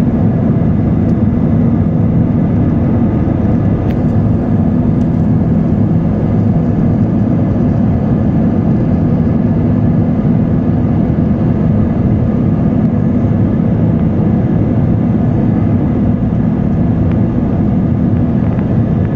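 Airbus A321 cabin noise during the climb after takeoff: the jet engines and rushing air make a loud, steady, low drone, heard from a seat over the wing.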